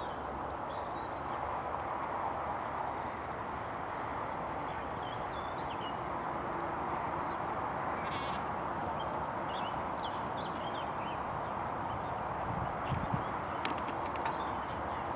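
Steady outdoor noise, most likely distant road traffic, with scattered short bird chirps and calls over it and a couple of soft knocks near the end.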